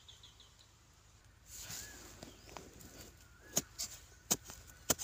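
A metal digging blade scraping and chopping into dry, crumbly soil, with three sharp strikes in the last second and a half.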